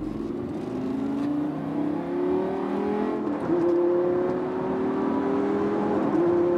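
Lamborghini Gallardo LP560-4's V10 engine pulling hard under acceleration. Its note climbs steadily, with a short break in the note about six seconds in.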